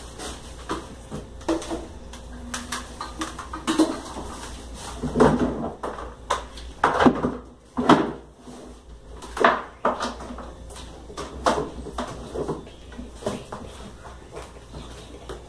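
Dishes, pots and pans clattering and clinking as they are moved and stacked on a kitchen counter, with several louder knocks in the middle.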